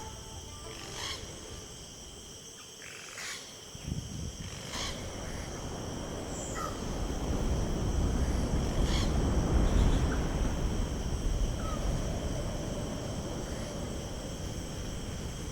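Outdoor natural ambience: a low rushing, wind-like noise that swells from about four seconds in and eases off near the end. Under it runs a steady high-pitched hum, with a few short, sharp calls or clicks.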